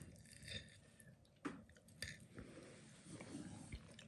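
Very quiet knife and fork working through a bacon-wrapped minced-meat skewer on a plate, with a few soft clicks of cutlery against the plate about a second and a half and two seconds in.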